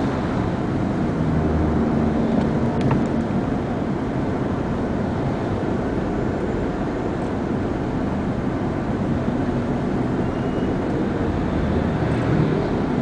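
Steady engine and road noise of a car moving slowly in traffic, heard from inside its cabin.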